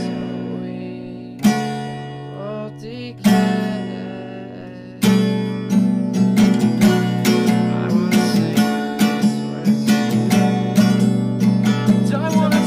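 Song accompaniment on acoustic guitar: three single strummed chords, each left to ring out, then steady rhythmic strumming from about five seconds in.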